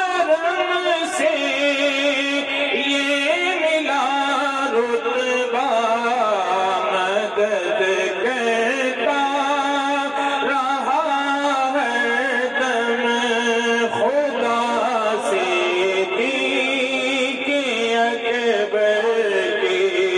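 A man singing a manqabat, an Urdu devotional praise song, solo, in long wavering, drawn-out melodic phrases.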